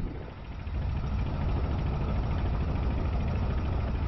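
Fishing boat's engine running steadily, a low drone that grows louder about a second in, with hiss of water and wind over it.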